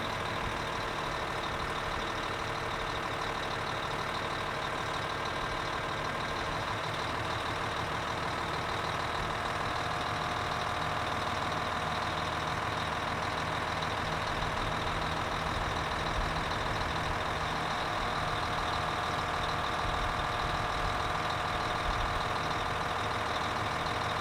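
Modern bus diesel engine idling steadily, a constant low drone.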